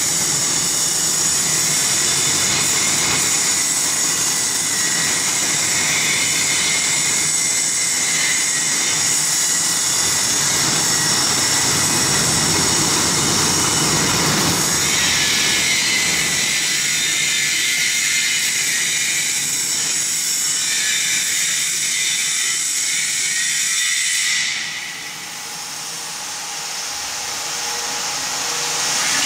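Small worm-style kiddie roller coaster train running on its steel tube track, a steady rolling rumble and hiss from the wheels on the rails. It drops sharply about 25 seconds in, then builds back.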